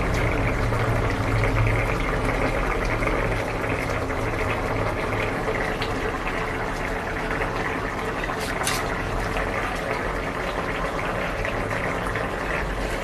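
Potato and paneer curry gravy bubbling steadily at a boil in a metal kadai. It is the final simmer, with the garam masala just sprinkled in.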